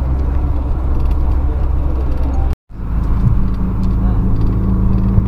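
Low road and engine rumble from a moving vehicle, heard from inside. It cuts out abruptly for a moment about halfway through, then returns as a steadier low engine drone.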